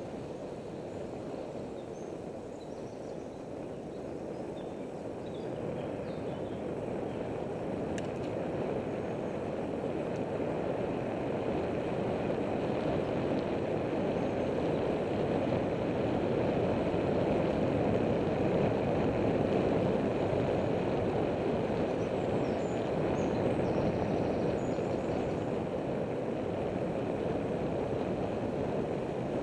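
Steady wind rush and rolling road noise from riding a bicycle, getting slowly louder through the first twenty seconds and easing a little near the end.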